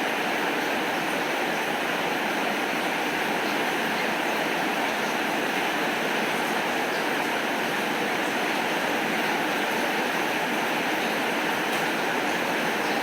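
Steady heavy rainfall, an even unbroken hiss with no thunder.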